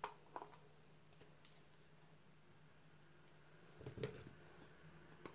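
Small sharp plastic clicks and taps as a thin precision screwdriver works against the plastic casing of a wireless charger, with a louder knock and clatter of the small screwdrivers being handled on the desk about four seconds in.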